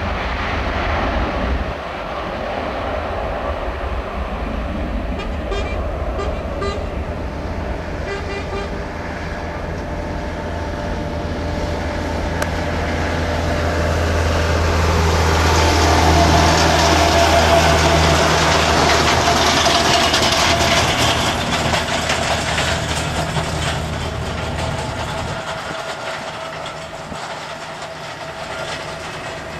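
Boeing 757 jet airliner's engines running, swelling to a peak about halfway through and then fading as it passes.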